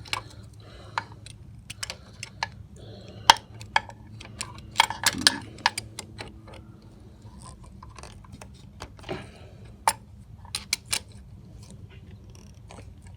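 Hand tool clicking and clinking irregularly against metal as a very tight oil drain plug on a mower engine is worked at, in sharp single knocks with a small cluster about five seconds in.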